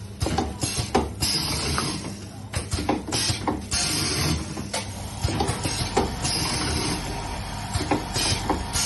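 Miniature forming machine running: irregular mechanical clacks and knocks over a steady low hum, with stretches of hissing air.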